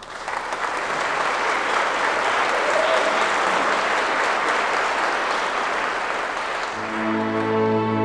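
Audience applauding in a large reverberant church. About seven seconds in, a string orchestra enters with long held chords under the last of the clapping.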